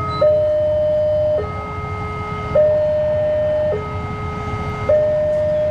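Electronic two-tone warning alarm alternating between a higher and a lower tone, each held a little over a second, over the steady low rumble of an approaching diesel locomotive.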